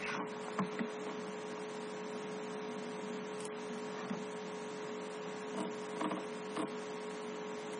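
Steady electrical hum with a constant hiss of the recording, and a few faint clicks about half a second in and again near six seconds.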